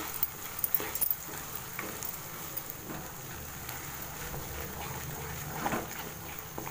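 Ground masala paste sizzling in butter in a kadai, stirred and pushed around with a spatula, with small crackles over a steady frying hiss.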